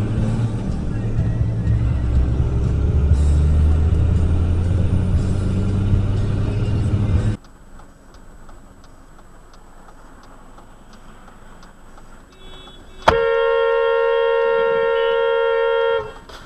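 Road and engine rumble inside a moving car, cut off abruptly about seven seconds in. Then a car horn is held in one steady blast of about three seconds.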